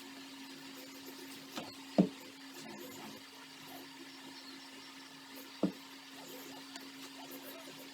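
A few sharp knocks: two close together near two seconds in and one more past five seconds, over a steady low hum.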